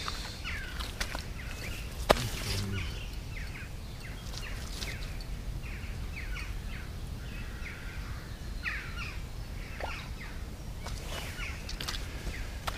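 Small birds singing, with many short chirps and twitters throughout, and one sharp click about two seconds in.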